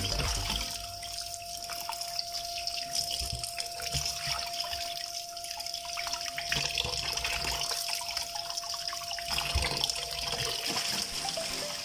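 Tap water running and splashing into a stainless steel sink as saba bananas are rubbed clean under the stream by hand, with small knocks and drips.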